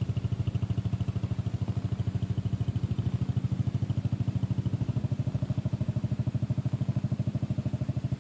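King Midget's small single-cylinder air-cooled engine running at a steady speed as the car drives across the grass, a rapid, even putt-putt beat.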